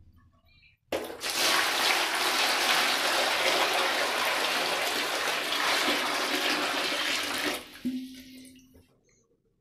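Water poured from a metal vessel into a plastic tub: a steady splashing gush that starts about a second in and trails off a little before the end.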